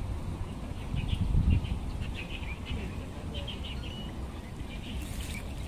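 Small birds chirping: scattered short high notes in quick little clusters, over a steady low rumble.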